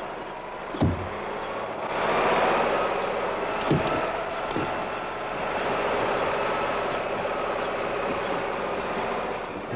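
Cartoon sound effect of a truck engine pulling away while towing. It comes in about two seconds in and runs steadily. A couple of short knocks sound before and during it.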